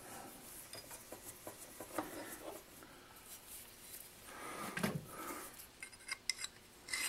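Faint handling sounds of a turned metal shaft being lifted out of a stopped lathe: light rubbing and small clinks, a soft knock about five seconds in, and a few sharp metal clicks near the end.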